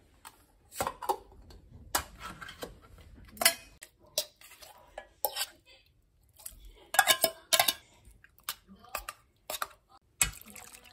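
Metal spoon clinking and scraping against a tin can and a metal saucepan: a string of sharp, separate clinks and knocks, thickest about seven seconds in.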